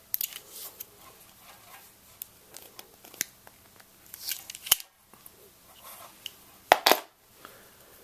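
Coax compression crimping tool closing on an RG6 F-connector: small clicks and rattles of handling, a sharp click, then a loud pair of snaps near the end as the tool compresses the connector.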